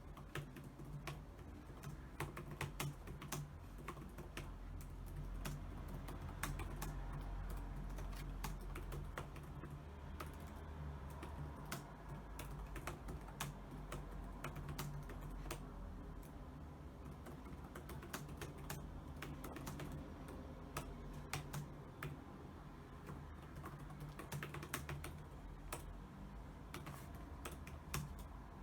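Computer keyboard typing: irregular rapid key clicks in runs with brief pauses, over a steady low hum.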